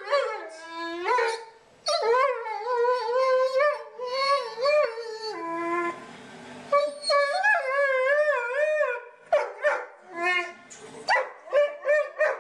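Dog howling in long wavering calls that rise and fall in pitch, then breaking into a run of short yips in the last few seconds: a demand the owner reads as asking for a snack.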